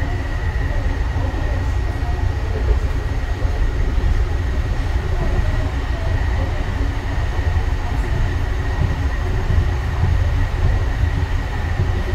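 Interior running noise of a Yongin EverLine light rail car, a Bombardier ART 200 with a linear induction motor, travelling at speed. A steady low rumble of steel wheels on the rails runs under a thin steady high whine.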